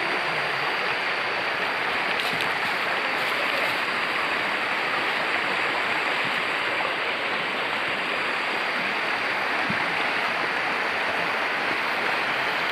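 Shallow rocky river rushing over stones, a steady, even rush of water.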